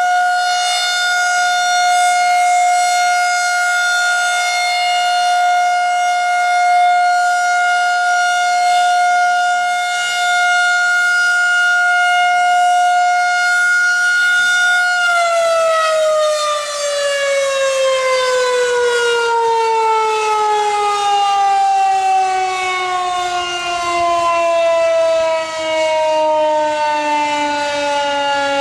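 Battery-powered Federal Signal 2001-130 rotating outdoor warning siren sounding its steady Alert tone, one loud held pitch. About 15 seconds in it shuts off and the pitch falls slowly as the rotor winds down.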